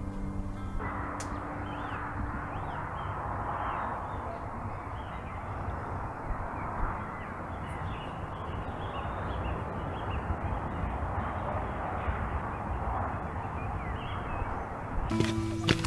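A large flock of corvids calling all at once, a dense, continuous chorus of overlapping caws.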